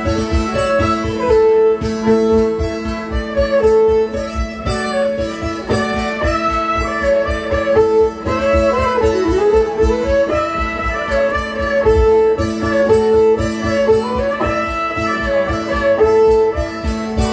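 Fiddle and mountain dulcimer playing a tune together: the dulcimer strummed in a quick, even rhythm over a steady drone note, the fiddle carrying the melody with sliding notes about halfway through.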